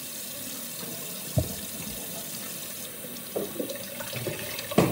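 Kitchen faucet running into a stainless steel sink as a halved bell pepper is rinsed under the stream, the water splashing off the pepper and the sink. A couple of short dull knocks, the loudest near the end.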